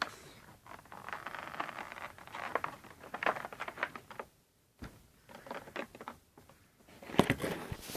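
Packaging being handled as a model airplane is taken out of its box: rustling with many small clicks, a short pause, then a quick run of sharper knocks and clatter near the end.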